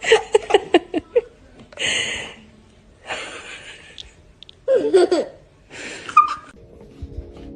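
A person laughing hard: a quick run of "ha-ha" bursts, then gasping breaths and more bursts of laughter. Soft music with steady tones starts near the end.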